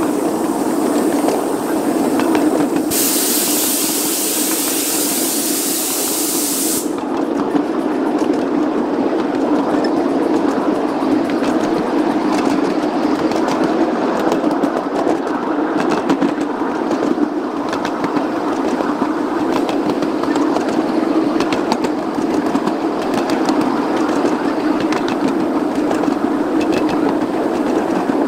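Ride-on live steam locomotive and its riding car rolling along miniature track: a steady rumble of wheels on the rails with light clicks from the rail joints. A burst of steam hiss starts about three seconds in and cuts off about four seconds later.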